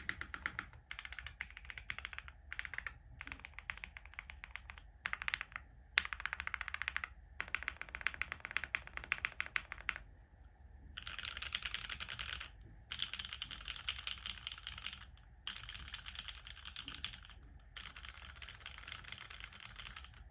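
Typing on an o-ring-mounted 60% custom mechanical keyboard (RME Studio Alas60) with Cherry MX Black linear switches on a full carbon-fibre plate and GMK keycaps. Keystrokes come in bursts of a few seconds separated by short pauses, and the typing grows faster and denser about halfway through.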